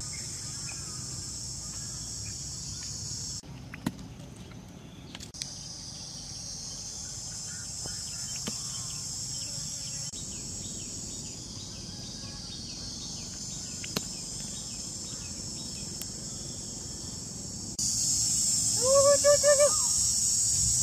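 Steady, high-pitched chorus of forest insects, cicadas or crickets, with a few sharp clicks. It drops away for about two seconds around three seconds in and gets louder near the end, where a quick run of four short, high calls is heard.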